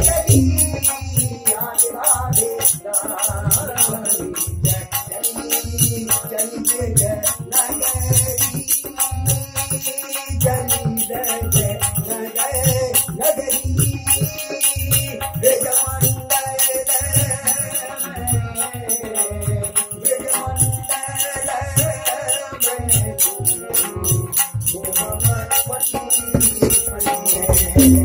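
Classical Kumauni Holi song performed live: a man singing to a harmonium over a steady, regular low drum beat and jingling percussion.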